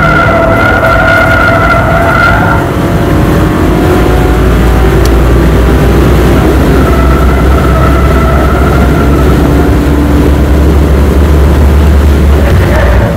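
Lincoln Mark VIII's V8 pulling hard at full throttle and high revs, heard from inside the cabin over road and wind noise. Tyres squeal through a corner for the first couple of seconds and again briefly midway. The level drops right at the end as the throttle comes off.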